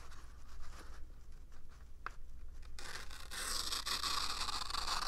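A woodcarving detail knife's blade drawn along the edge of a sheet of paper, making a soft, steady scraping hiss that begins a little past halfway through. It is a sharpness test, run to feel for snags in the edge, and the edge runs through without snagging.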